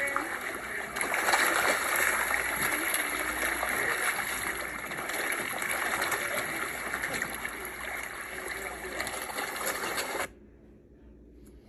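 A packed mass of carp thrashing and splashing at the water's surface in a feeding frenzy, a dense steady churning of water that cuts off suddenly near the end.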